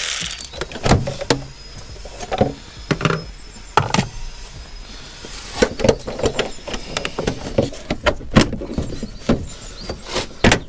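Plastic airbox of a Vauxhall Astra Mk5 being worked loose and lifted out of the engine bay: irregular knocks and clicks of plastic with short plastic squeaks in between.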